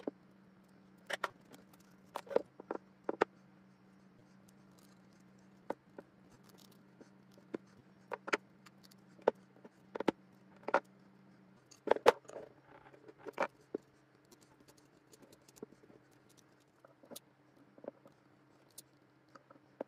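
Hands wrapping paracord around a hatchet handle and handling tools on a wooden table: irregular clicks, taps and knocks with light rustling, the loudest knock about twelve seconds in. A faint steady hum runs underneath.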